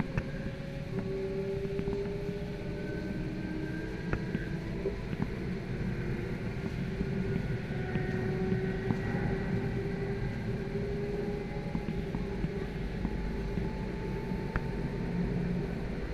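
Interior of a Lastochka (Siemens Desiro RUS) electric train running: a steady low rumble of wheels on track with faint electric motor whines that rise slowly in pitch, and occasional sharp clicks.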